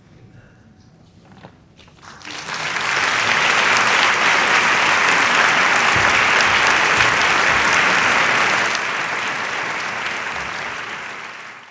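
Theatre audience applauding at the end of a performance: quiet for about two seconds, then clapping breaks out, swells quickly and holds steady, easing a little near the end.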